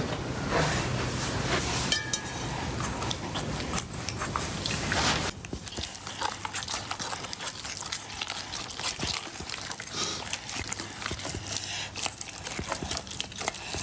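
Homemade slime being mixed by hand: a run of wet, sticky squelches and small clicks. It is louder and more continuous for the first five seconds, then goes on as scattered smaller clicks.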